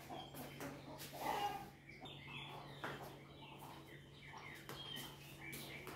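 Faint bird chirps, scattered short calls, over a low steady hum, with a few light knocks.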